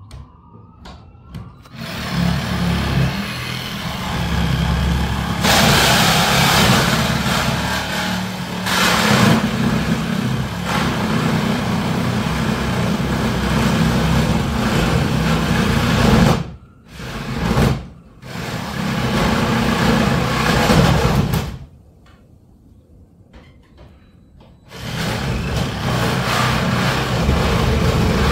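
Reciprocating saw cutting through a section of the old garage door, running in long stretches. It stops twice briefly about sixteen seconds in, and for about three seconds near the end before cutting again.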